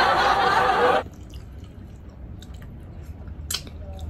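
A loud, dense burst of sound cuts off sharply about a second in. Then quiet eating sounds follow: chewing and small mouth clicks, with a couple of sharper smacks.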